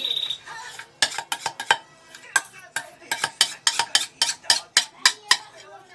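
A utensil scraping and knocking against the inside of a stainless steel saucepan while thick pastry cream is emptied out of it: a quick, uneven run of sharp metallic clinks, a few a second, stopping about five seconds in.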